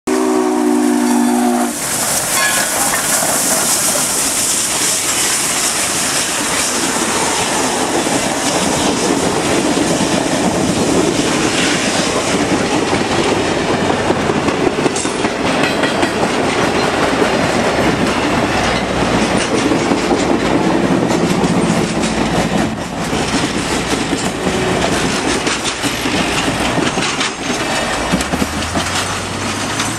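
Pere Marquette 1225, a 2-8-4 Berkshire steam locomotive, ends a whistle blast of several tones at once in the first second and a half. It then passes close by with a loud hiss. The rumble and clickety-clack of its passenger cars rolling over the rails follow.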